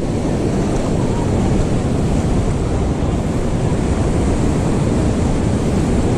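Sea surf washing onto the beach, mixed with steady, heavy wind buffeting the microphone.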